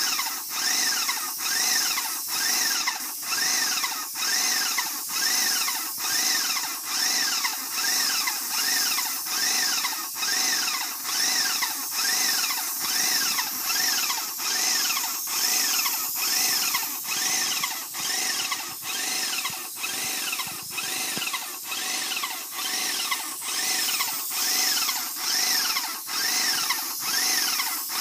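A mechanical squeak repeating evenly about twice a second, each cycle a short rising whine.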